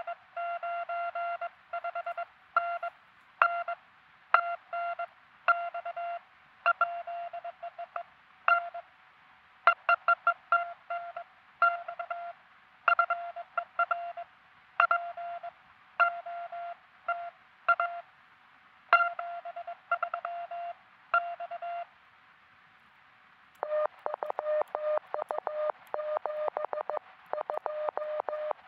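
Morse code from a truSDX QRP transceiver: a steady sidetone near 700 Hz keyed on and off at an unhurried pace. After a brief pause near the end, a slightly lower-pitched Morse signal, sent faster and with hiss around it, comes in.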